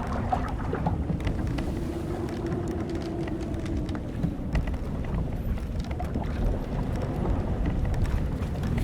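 Old wooden sailing ship's timbers creaking: a long low groan begins about a second and a half in and lasts a few seconds, and a fainter, higher creak follows midway. Underneath is a steady wash of sea and wind with scattered small ticks.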